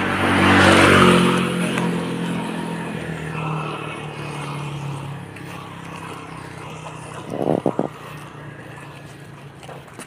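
A motor vehicle passing close by on a wet road: its engine and tyre hiss swell to a peak about a second in, then fade away over the next few seconds. A few short sharp knocks follow about seven and a half seconds in.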